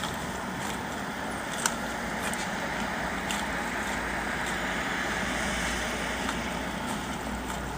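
Steady road-vehicle noise that slowly swells and fades over several seconds, over a low steady hum, with a sharp click about one and a half seconds in.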